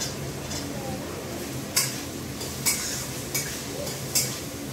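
Metal cooking utensils clinking against a steel bowl and a frying pan as shelled peas are added to frying vegetables: four sharp clinks roughly a second apart over a steady low hum.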